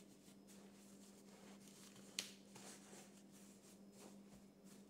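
Near silence: a faint steady hum and light handling of rolled disposable diapers, with one soft tap about two seconds in.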